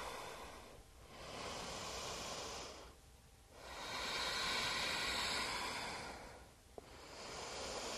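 A person breathing slowly and deeply while holding a yoga pose: about four long, soft breaths in and out, each lasting around two seconds, with short pauses between them.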